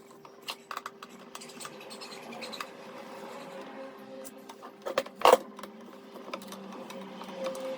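Electric drill motor running steadily while boring holes in an MDF board, with scattered light clicks and a sharper knock a little past five seconds in.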